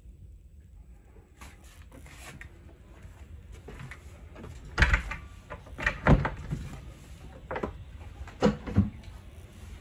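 Irregular knocks and thumps of footsteps and bumps as someone climbs a cruiser's carpeted companionway step onto its fibreglass cockpit deck. The steps are quiet at first, with the loudest thumps about halfway through and again near the end.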